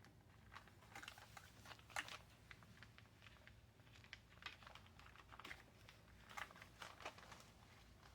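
Faint, scattered rustles and ticks of paper pages and thread being handled while a journal is sewn with a needle in a three-hole pamphlet stitch, the strongest tick about two seconds in.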